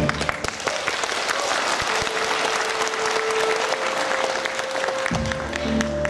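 Audience applauding, a dense patter of clapping over a few quiet held notes of the dance music; fuller, deeper music comes back in about five seconds in.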